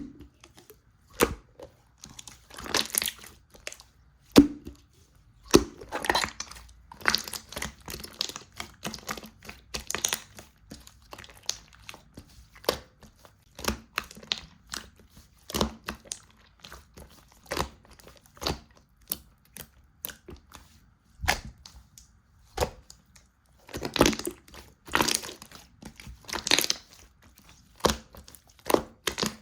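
Slime being squeezed, pressed and stretched by hand, giving irregular sharp clicks, pops and short crackly squelches, with a few louder bursts of crackling about three seconds in, about six seconds in and near the end.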